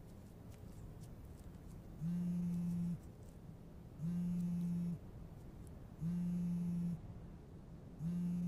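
Mobile phone buzzing on vibrate with an incoming call, about a second of buzz every two seconds, starting about two seconds in; the call goes unanswered.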